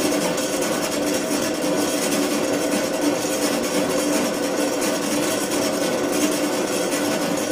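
A motor-driven kinetic sculpture built into a backlit lightbox, running with a steady mechanical hum and whir.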